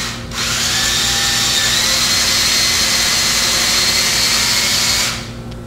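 Cordless drill running steadily as it bores a clearance hole for a number 8 screw through the hatch trim ring into plywood. It starts just after the beginning and stops about a second before the end.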